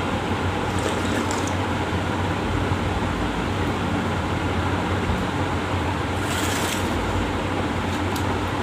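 Steady whirr and low hum of an electric fan, with a brief squelch of fingers mixing watery rice in a metal plate about six seconds in.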